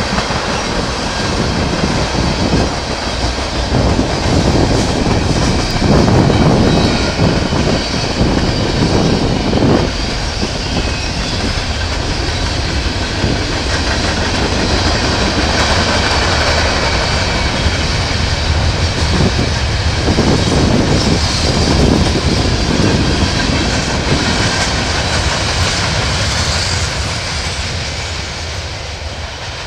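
Freight cars of a manifest train (tank cars, covered hoppers and coil cars) rolling past: a steady rumble of wheels on the rails, louder in places, fading near the end as the last cars go by.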